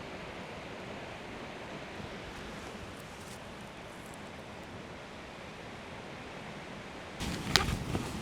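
Steady hiss of rain falling. About seven seconds in, a burst of close rustling handling noise with one sharp click cuts in.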